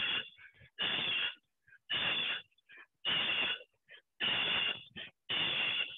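Heavy, rhythmic exercise breathing: one forceful breath about every second, each about half a second long, with short silences between.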